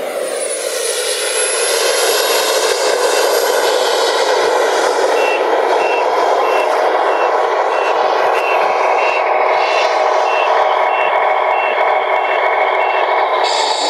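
Tamiya Scania R620 RC truck's onboard sound unit sounding reversing beeps, about two a second, from about five seconds in, over a steady engine drone. An engine passing and falling in pitch is heard at the start, and a short hiss comes near the end.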